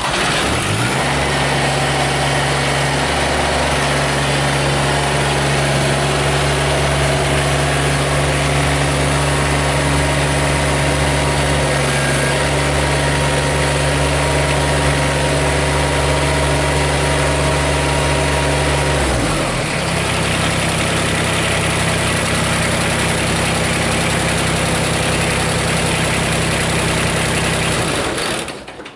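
Kubota BX24 compact tractor's three-cylinder diesel engine running steadily while the tractor pulls forward and the loader bucket is lowered. Its note changes about two-thirds of the way through, and the engine shuts off near the end.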